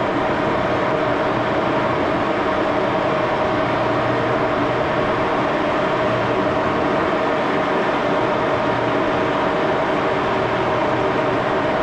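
Axelson gear-head engine lathe running steadily with its spindle turning, a constant mechanical hum with one steady tone from the headstock gearing.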